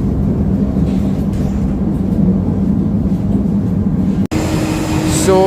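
Steady running noise inside an ETS electric train carriage, a rumble with a low hum. It cuts off suddenly just over four seconds in, giving way to a different steady background with a faint hum.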